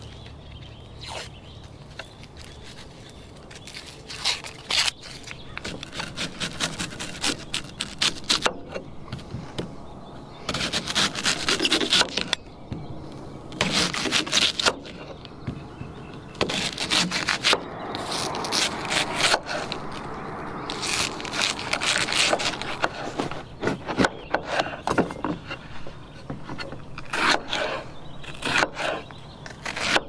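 A knife slicing an onion and then a bell pepper on a wooden cutting board: runs of quick strokes knocking through onto the board, with scraping and rubbing of the vegetable and papery onion skin being peeled at the start.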